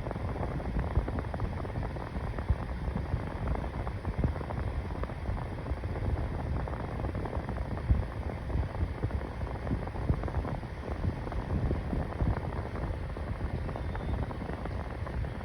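Mainstays 9-inch box fan running on its medium speed, a steady low rushing of air that buffets the microphone.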